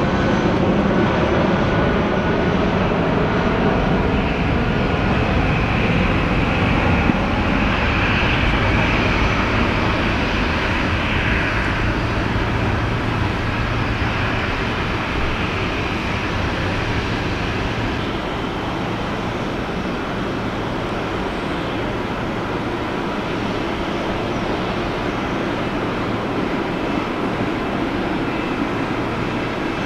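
Jet airliner engines running: a steady rush with a whine heard for a few seconds in the middle, the sound easing off slowly toward the end.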